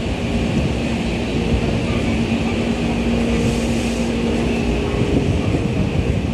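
Keikyu 600 series electric train standing at a platform with its doors open, giving a steady hum and rumble, with a steady low tone that fades out about five seconds in.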